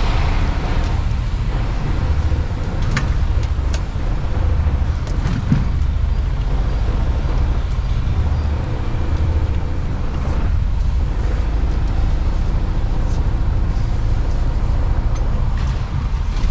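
Mercedes-Benz Actros lorry's diesel engine running as the truck drives off slowly, heard inside the cab: a steady low rumble, with a couple of light clicks a few seconds in.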